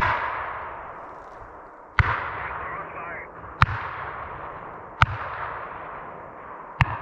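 Five shotgun blasts fired with buckshot at a running deer, spaced irregularly about one and a half to two seconds apart, each trailing off in a long echo.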